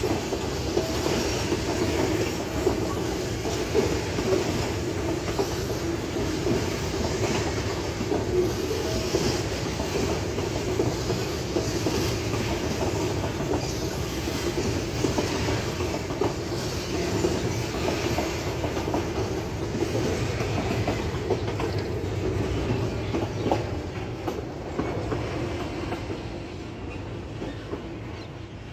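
Freight train of covered hopper wagons rolling past close by: a steady rumble of steel wheels on the rails with repeated clacking over the rail joints, fading over the last few seconds as the wagons move off.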